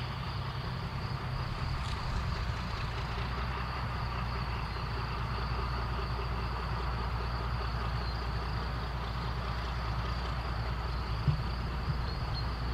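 Distant Henschel-built class 75 narrow-gauge diesel locomotive running steadily with a low rumble, with a steady high buzz of insects over it.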